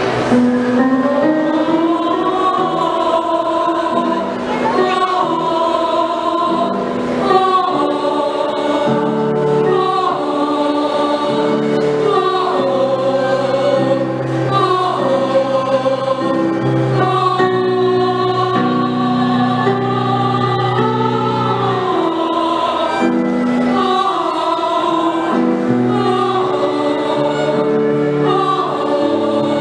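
A choir singing in several parts, holding chords that change every second or two while a higher line moves above them.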